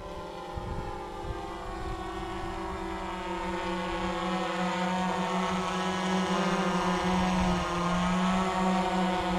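GoPro Karma quadcopter's four propellers buzzing with a steady, slightly wavering hum as the drone flies in close and hovers, growing louder as it nears.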